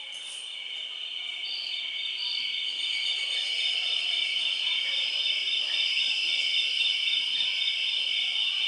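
Recorded jungle ambience of crickets and insects chirring in a steady, high, shimmering buzz that fades in and grows louder, with a couple of brief higher chirps about two seconds in.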